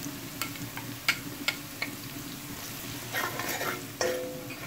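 Sliced onions sizzling as they fry in oil in a steel pot, while a spoon stirs them, clicking sharply against the pot several times in the first two seconds and scraping more busily from about three seconds in.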